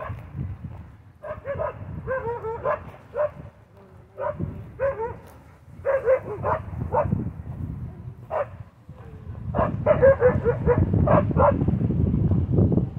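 Dogs barking in short quick runs, bark after bark with brief pauses between the runs. A low rumble lies underneath, strongest in the last few seconds.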